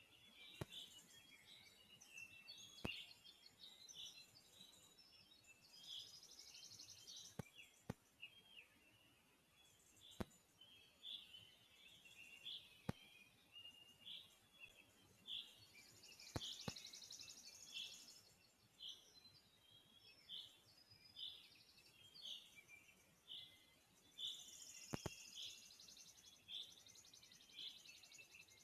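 Faint birdsong: a run of short high chirps, coming about once a second in the second half, with a few higher trills. About eight sharp ticks are scattered through it and stand out as the loudest sounds.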